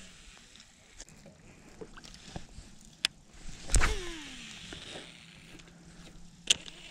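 A cast with a baitcasting reel: a sudden swish, then the spool whirring with its pitch falling as it slows, then holding steady for a couple of seconds. A sharp click comes near the end, with light ticks earlier on.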